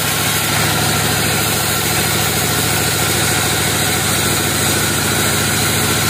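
Band sawmill running steadily with its blade cutting lengthwise through a log: a constant machine drone under a continuous cutting hiss.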